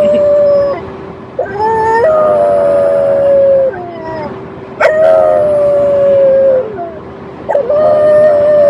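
French bulldog howling: a run of long, held howls of about two seconds each, separated by short breaks of about a second.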